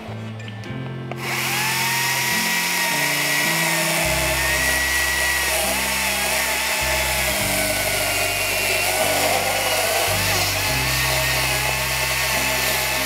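Makita MUC008G cordless chainsaw starting up about a second in and running at speed against a thick log. Its electric motor and chain give a steady whine whose pitch wavers slightly.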